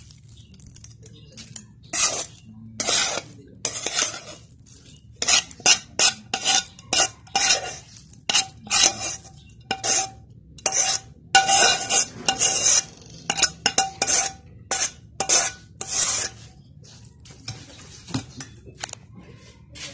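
A spatula scraping and knocking fried rice out of a wok into an aluminium pot: a fast, irregular run of scrapes and clanks, some with a short metallic ring. It starts about two seconds in and thins out near the end.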